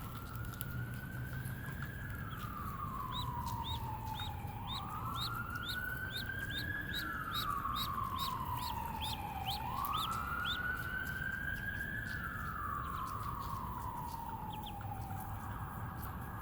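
Emergency vehicle siren wailing, its pitch rising and falling slowly about every five seconds. Over it, ducklings peep in quick, high chirps through the first half.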